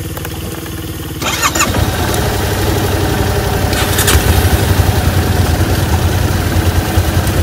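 Motorcycle engine running, louder from about a second and a half in.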